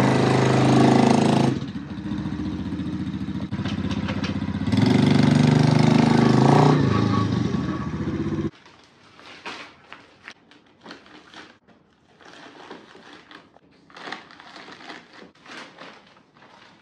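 Small single-cylinder four-stroke engine of an X-Pro 125 four-wheeler running and revving, loaded with about 320 pounds of concrete bags. It gets louder twice, with a lower stretch in between, then stops abruptly about eight and a half seconds in. After that come only faint scattered knocks.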